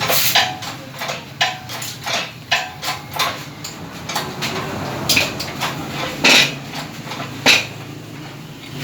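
Metal engine parts and hand tools clinking and knocking against each other during motorcycle engine reassembly, with a run of light clinks and two sharper knocks in the second half.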